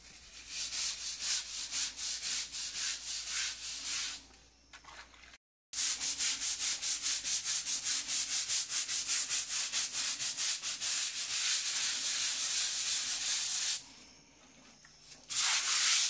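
Small hand scrub brush scrubbing a rough, wet, algae-covered plastered wall in quick back-and-forth strokes, about four to five a second. The scrubbing stops briefly twice.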